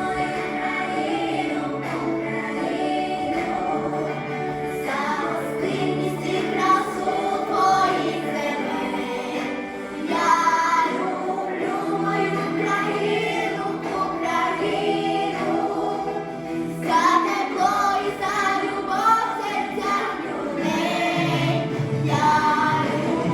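Song: voices singing over instrumental accompaniment.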